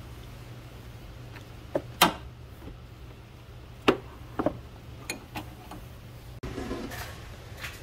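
Open-end wrench clinking against a power steering line fitting as it is re-seated and turned a little at a time: several sharp metal clicks, the loudest about two seconds in, over a steady low hum, with a brief rustle near the end.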